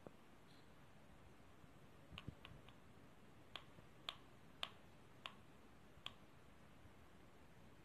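Near silence broken by about eight faint, sharp clicks at uneven intervals, from about two seconds in until about six seconds in.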